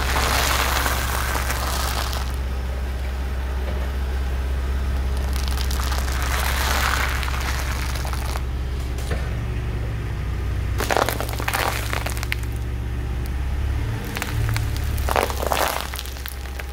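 A car tyre rolling slowly over brittle objects and crushing them, with spells of crackling and a few sharper snaps. Underneath, the idling car engine keeps up a steady low hum.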